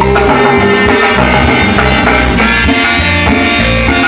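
Live cumbia band music: an instrumental passage between sung lines, with a steady beat of rattling percussion over bass and a held keyboard-like note early on.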